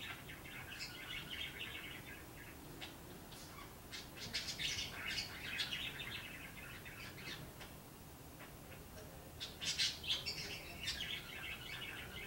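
A small bird chirping and chattering in three bouts of quick, high notes, with quieter gaps between them.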